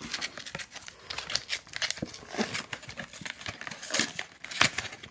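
Packaging of a trading-card tin being opened by hand: irregular crinkling and rustling of plastic wrap, with a sharper crackle about four and a half seconds in.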